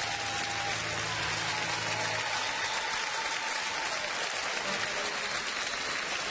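Concert audience applauding, a dense, steady clapping. A low steady tone underneath stops abruptly about two seconds in.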